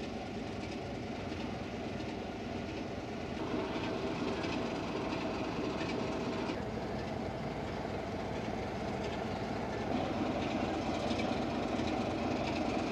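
English Electric Class 37 diesel locomotive standing with its engine idling: a steady engine rumble with a few steady tones in it, a little louder from about three seconds in.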